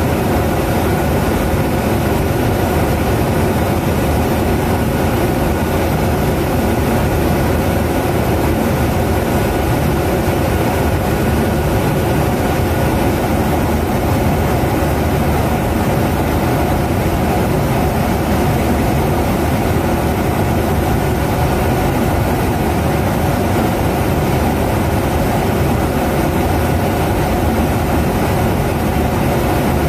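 Steady in-flight noise of a KC-135 Stratotanker aerial refueling tanker: a constant drone of engines and rushing air with a few faint steady tones, unchanging and unbroken.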